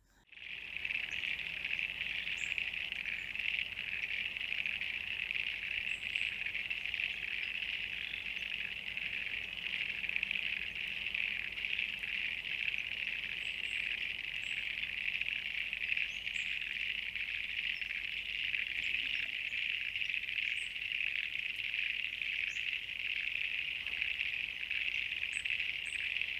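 A chorus of frogs calling together, making a dense, steady, high-pitched trilling din, with a few faint higher chirps scattered through it.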